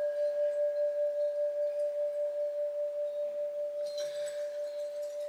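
A single struck bell-like note that rings on, slowly fading, with a gentle regular waver in its loudness.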